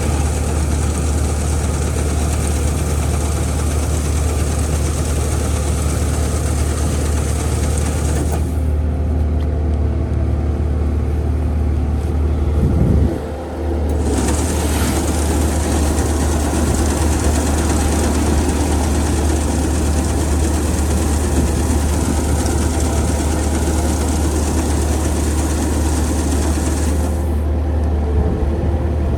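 An engine running steadily with a deep, even hum; its sound briefly changes and dips about 13 seconds in.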